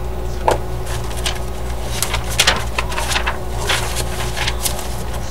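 Paper rustling with light taps and clicks as paper cards and note sheets are handled against a poster board, over a steady low hum.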